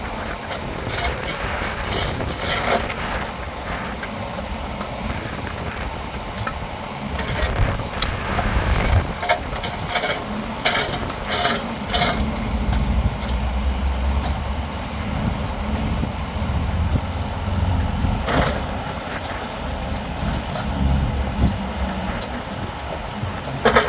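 Heavy construction machinery engine running steadily, swelling louder in the middle, with scattered sharp knocks and clanks of work going on.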